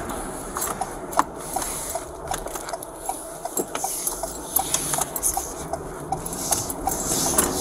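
Light, regular ticking about two to three times a second over a soft rubbing noise inside a moving patrol car's cabin.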